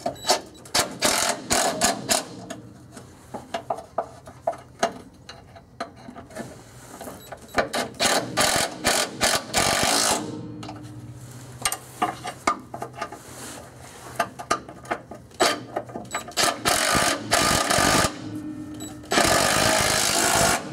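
DeWalt cordless impact tool driving the bolts of a steel skid plate, running in several bursts, with single clicks and knocks between them; the longest bursts come about seven to ten seconds in and just before the end.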